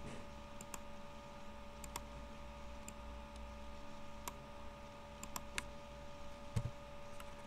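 Computer mouse clicks, about nine short sharp clicks spaced irregularly, with one duller knock about two-thirds of the way through, over a faint steady electrical hum.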